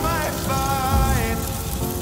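Background pop song: a sung voice holding a long note over a slow bass beat.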